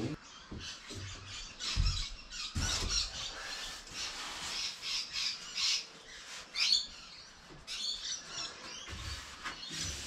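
Rubber foam floor matting being handled and pressed into place on silicone, with a couple of dull thumps about two seconds in, then scattered high squeaks and chirps.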